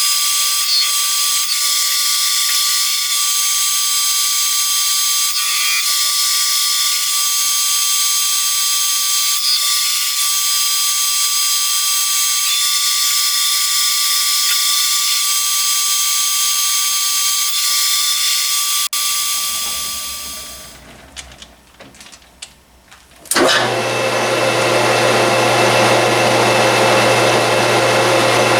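Small metal lathe running with a steady high-pitched whine. About two-thirds of the way through it is switched off and spins down. A couple of seconds later it starts again with a deeper hum.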